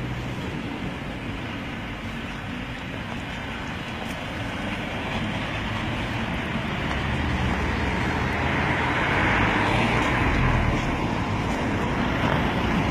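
Road traffic noise, with a vehicle passing that grows louder through the middle and is loudest near the end.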